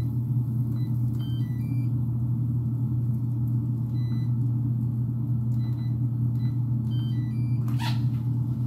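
Rice cooker's electronic beeps: single short beeps and short runs of beeps at different pitches as its buttons are pressed, over a loud steady low machine hum. A sharp clatter comes near the end.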